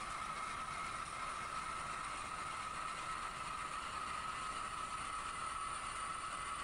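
Torsa lathe running while a boring tool, hand-fed by the compound slide, cuts a conical bore in cast iron. The result is a steady cutting sound with an even high tone.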